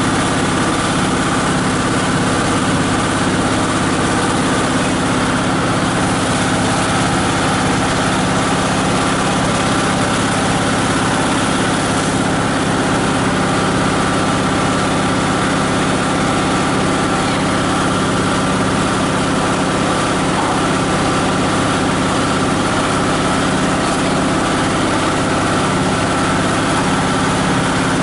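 18 HP diesel engine of a plastic and paper grinding machine running steadily.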